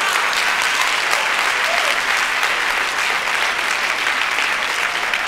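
Congregation applauding steadily.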